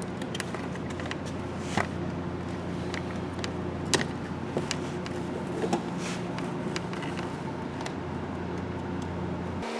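A few sharp clicks and light knocks of a plastic door panel being handled, over a steady low hum that cuts off suddenly near the end.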